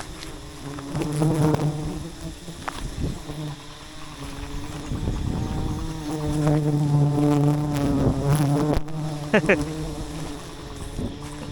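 Bees buzzing close by: a hum that swells and fades as they fly near, loudest about six to eight seconds in, with a quick swoop in pitch about nine seconds in.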